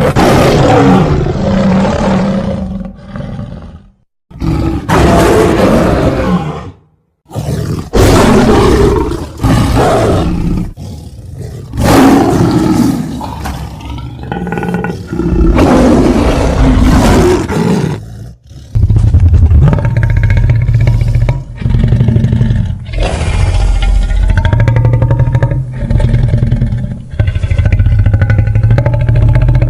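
Big-cat style creature roar sound effects: a string of loud, separate roars and snarls. About eighteen seconds in, they give way to a longer, near-continuous growling roar with a wavering pitch.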